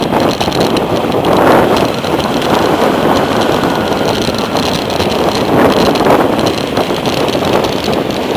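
Wind rushing over the microphone of a handlebar-mounted camera on a moving bicycle: a loud, steady rushing noise that swells and eases every few seconds.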